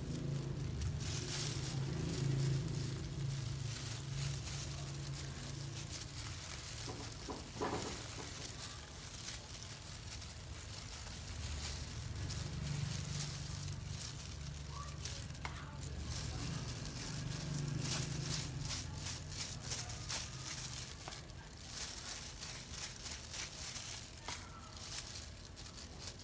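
Disposable plastic gloves crinkling and a dye brush scratching as thick black hair dye is worked into curly goat-hair doll hair: irregular rustles and scrapes throughout, over a low hum that comes and goes.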